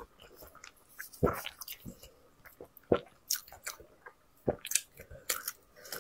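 Close-miked chewing of braised sheep-head meat: irregular wet smacks and clicks, with a few louder ones about a second and a half apart.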